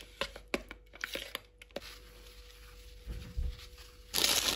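Metal spoon clicking and scraping against a bowl while stirring a thick cream cheese mixture, then quieter, with a dull knock and a short rustle near the end.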